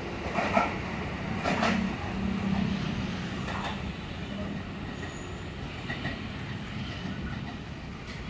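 JR 205 series electric commuter train (KRL) running: a steady low hum with a few scattered clicks and knocks.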